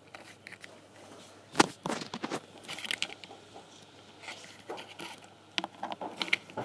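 Scattered handling noises: light knocks, taps and rustles as the small plastic toy figures, their cardboard box and the recording device are handled, with the sharpest knock about one and a half seconds in.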